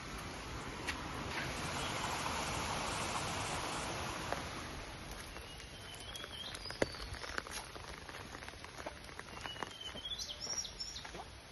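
Outdoor forest ambience: a rushing noise swells and fades over the first few seconds, then birds give short chirps that rise in pitch, about five seconds in and again near the end, over scattered light clicks and ticks.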